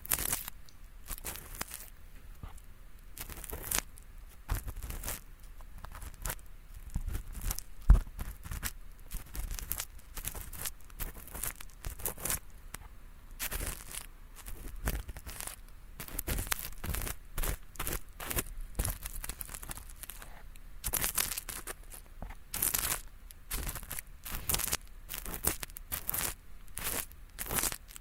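Ear-cleaning ASMR: a tool scratching and scraping inside a binaural microphone's ear in quick, irregular, crackly strokes, made to sound like flaky earwax being picked loose. One sharper knock comes about eight seconds in.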